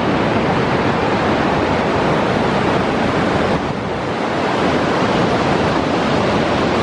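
Steady loud rushing noise with no distinct events, easing slightly about halfway through.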